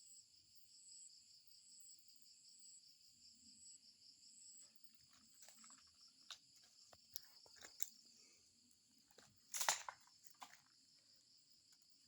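Faint, steady high-pitched trill of insects such as crickets, pulsing rapidly. Scattered clicks and one short, loud burst of noise come about ten seconds in.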